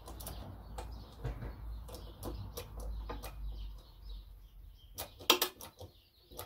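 Scattered metallic clicks and creaks from a small bench press forcing the rotor out of a heater water pump's magnetic cup, a stiff, rust-bound press fit, over a low rumble of clothing brushing the microphone. A few sharper knocks come about five seconds in.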